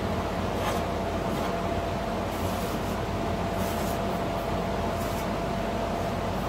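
A felt-tip marker scratching in several short strokes along the edge of a new steel floor pan, over a steady rushing background noise with a faint steady whine.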